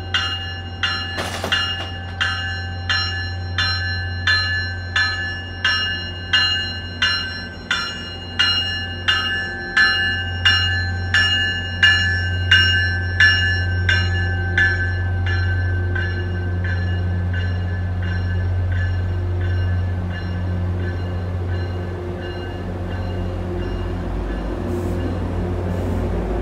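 Commuter train's bell ringing in steady strikes, about one and a half a second, as the train pulls into the platform. The ringing stops about fifteen seconds in, leaving the steady low hum of the stopped train.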